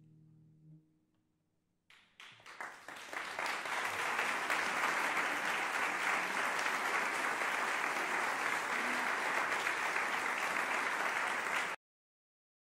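The last low notes of a concert pedal harp ring out and fade, then after a brief quiet an audience starts applauding: a few scattered claps at first, building within a couple of seconds to full, steady applause that cuts off suddenly near the end.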